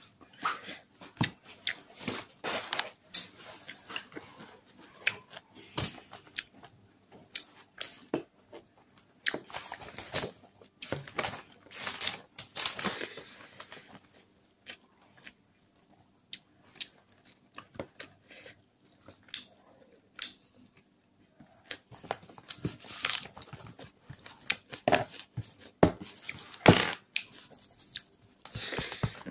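Eating by hand: fingers working rice and chicken curry on a plate and pulling the meat apart, with chewing and mouth sounds. Many short, irregular clicks and smacks.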